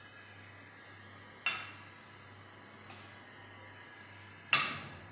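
A spoon clinking against a bowl while serving: two sharp taps, each with a short ring, about three seconds apart, the second louder.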